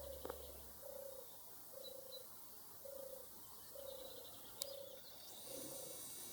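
European turtle dove purring: a run of about seven short, low purring notes, roughly one a second.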